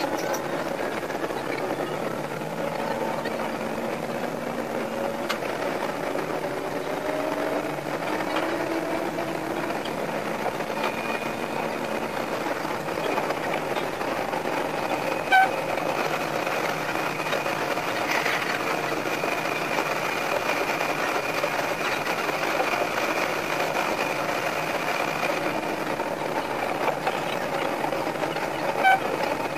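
Sanriku Railway 36-200 series diesel railcar running along the line, heard from the cab and sped up fivefold, so the engine and wheel noise come out as a fast, high, buzzing whirr. The engine pitch glides in the first few seconds, and two very short toots sound about halfway through and near the end.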